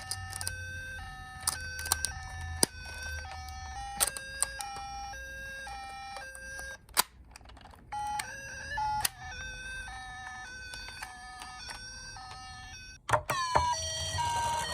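Toy emergency-vehicle siren sounding a two-tone hi-lo pattern, switching between a high and a low note about every half second, with sharp clicks scattered over it. After a brief break it resumes, and near the end a louder gliding wail siren starts.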